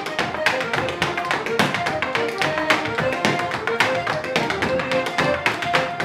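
Sean-nós dancer's shoes beating out rapid, rhythmic steps on the floor over an accordion playing a lively Irish dance tune, with a bodhrán keeping time.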